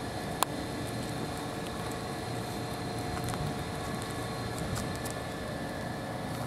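Steady mechanical hum with several held tones, typical of engines or machinery running at a harbour, with one sharp click about half a second in.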